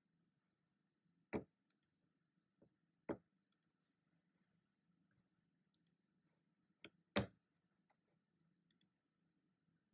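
A few isolated clicks of desk work over near-silent room tone with a faint low hum. There are sharp clicks about a second and a half and three seconds in, a close pair near seven seconds, and faint ticks between them.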